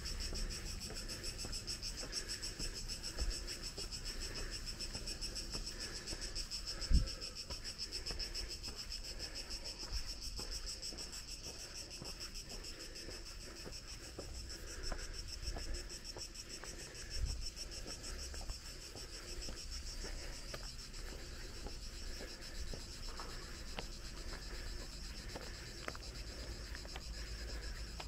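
Steady high-pitched chorus of singing insects, with a few soft thumps, the loudest about seven seconds in.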